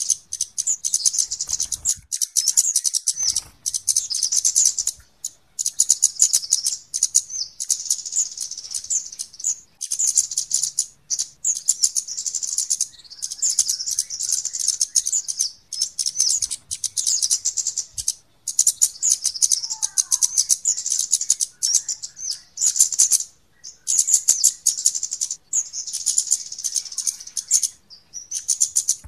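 Flowerpeckers (kemade) calling: rapid, high-pitched ticking chirps in runs of a few seconds with brief gaps, a bird-lure recording used to call the birds in.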